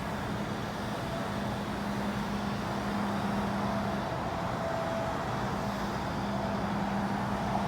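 A steady mechanical hum over a constant rushing noise, unchanging throughout.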